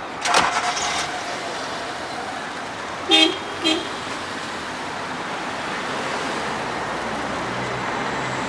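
Two short toots of a car horn about three seconds in, over the steady sound of a car moving off on the road. A few sharp clicks come right at the start.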